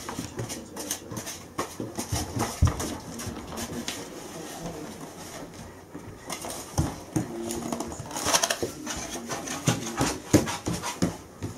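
A Bernese mountain dog and a toddler moving about on a floor: scattered light taps and clicks from steps and handling of a food tray, with short voice sounds now and then in the second half.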